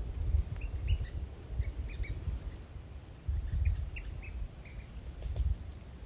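Red-cockaded woodpeckers giving short, scattered, Downy Woodpecker-like call notes, several a second in loose clusters. Under them sit a steady high hiss and a low rumble that swells and fades.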